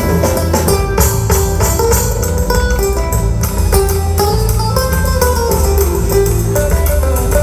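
Live band playing an upbeat Latin number: steady bass and percussion with tambourine, strummed guitar, and a melody moving in short held notes.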